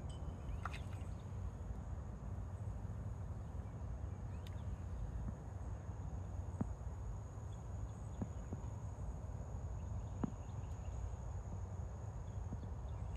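Quiet outdoor background: a steady low rumble with a thin, steady high-pitched tone over it, a brief chirp under a second in, and a few faint ticks later on.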